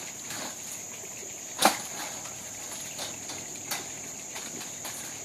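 Steady high-pitched insect chorus, with a few sharp clicks and knocks over it, the loudest about one and a half seconds in.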